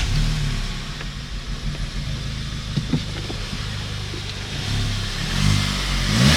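Audi S3's turbocharged four-cylinder engine just caught on its first start after new coil packs were fitted to cure a misfire, running steadily at idle. Near the end the revs rise and fall a few times.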